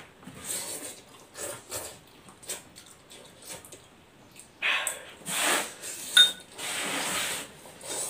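A person slurping spicy instant noodles in a series of noisy sucks, the later ones longer and louder, with breathing and chewing between. A brief light clink, like a metal fork against the bowl, comes about six seconds in.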